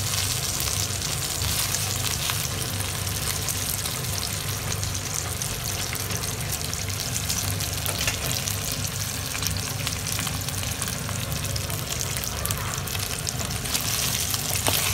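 Previously boiled chicken pieces and minced garlic frying in hot oil in a nonstick pan. A steady sizzle with fine crackling: the chicken is being browned in the second cooking stage of adobo.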